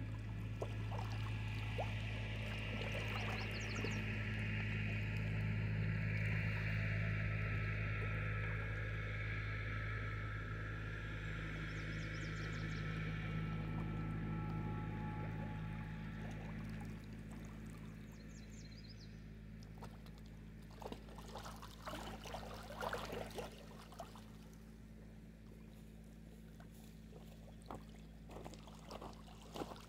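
Small lake waves lapping and splashing against a rocky shore, with irregular little splashes in the second half, over a steady low hum.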